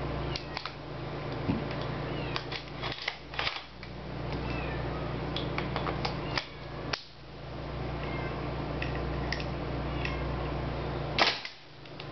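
Scattered metallic and plastic clicks and clacks of a King Arms gas-blowback M4 airsoft rifle being handled, its magazine worked at the magazine well, with the sharpest clack about eleven seconds in as the magazine goes in. A steady low hum runs underneath.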